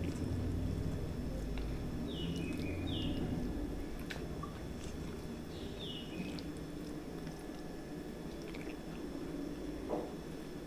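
A hand mixing and mashing rice with curry in a steel plate: soft squishing with faint clicks. A few short falling chirps sound in the background about two and six seconds in.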